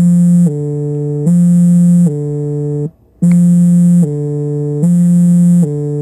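Samsung Galaxy phone's vibration motor buzzing in the 'Siren' vibration pattern. The buzz alternates between a louder, higher tone and a lower one roughly every 0.8 s, like a hi-lo ambulance siren. The cycle runs twice with a brief stop about halfway through.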